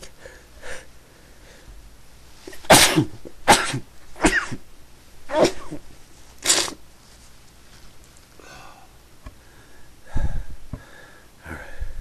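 A person sneezing in a fit: about five loud sneezes in quick succession starting near three seconds in, then another near the end. The sneezer puts the sneezing down to an allergy to something unknown.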